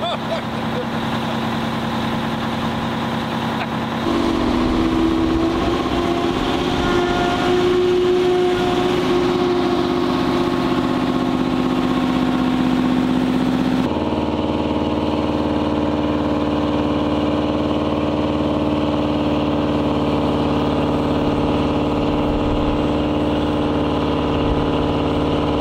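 Heavy Oshkosh HET wrecker's diesel engine running steadily as the truck works up a slick snowy hill. It gets louder about four seconds in, and its pitch shifts about halfway through.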